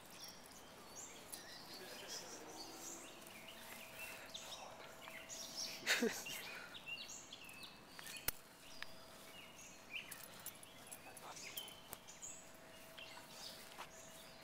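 Birds chirping in the background over open-air ambience, with a faint steady hum. A short, louder falling sound comes about six seconds in.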